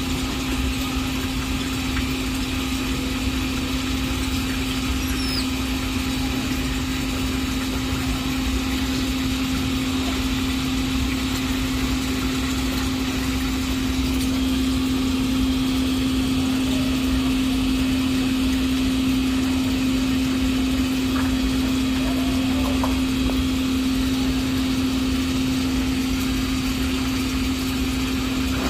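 Steady machine-like hum with one constant low tone over a low rumble, unbroken throughout.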